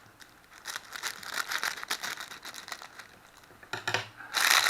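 A parcel's packaging being opened by hand: scattered crinkles and rustles, then louder, denser crinkling and tearing near the end.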